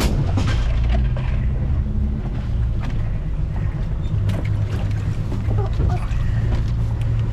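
Motorboat engine running steadily, a constant low drone.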